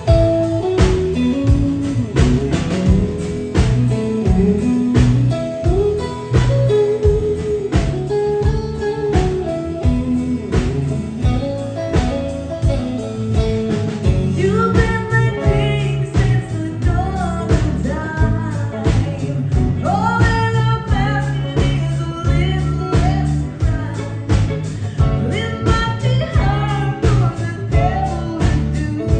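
Live country band playing a slow song on acoustic and electric guitars with a drum kit keeping a steady beat. A woman sings lead from about halfway through.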